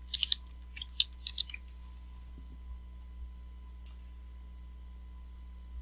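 Computer keyboard keys clicking: a quick run of about a dozen keystrokes in the first second and a half, then one more click about four seconds in.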